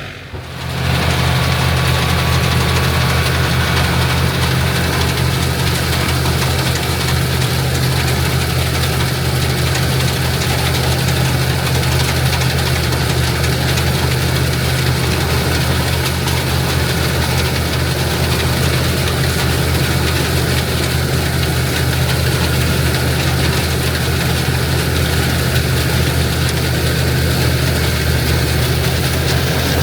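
An International Harvester tractor engine and a pull-type IH 82 combine run together while harvesting oats, making a steady, low machine drone that sets in about a second in and holds unchanged.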